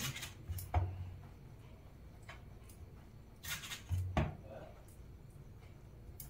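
Hands rolling and pressing a soft dough roll on a floured stainless-steel plate: scattered light knocks and brushing rubs against the metal, with a few heavier knocks, one about a second in and another about four seconds in.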